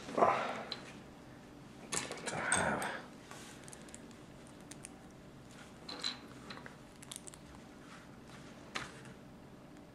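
Small plastic Lego bricks handled and pressed together: scattered light clicks, with two louder rattling, scraping bursts near the start and about two seconds in.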